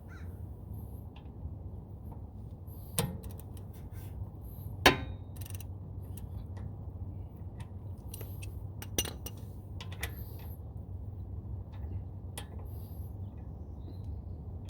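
Scattered metallic clinks and clicks of a socket and ratchet being worked on a car's rear brake caliper bolts, with one sharp metal knock about five seconds in, over a steady low hum.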